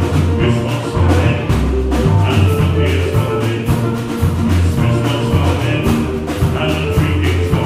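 Live jazz band playing: saxophone melody over a bass line and drum kit, with a steady beat.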